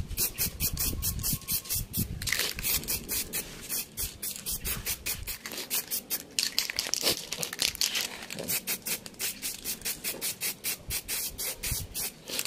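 Aerosol spray can of white paint spraying onto a motorcycle fairing, a hiss that comes out in rapid, uneven spurts rather than a smooth stream, which the painter likens to a burst.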